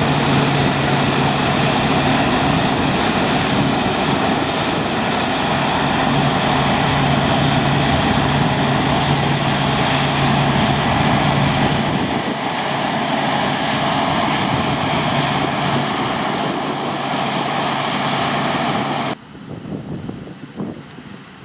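Heavy diesel farm machinery running steadily at working load with a constant low hum. It cuts off suddenly near the end, leaving faint wind noise on the microphone.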